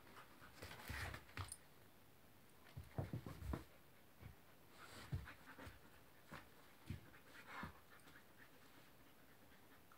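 A Belgian Tervuren dog and a puppy play-wrestling: faint scuffles and soft thumps of paws and bodies on the floor, coming in scattered bursts a few times.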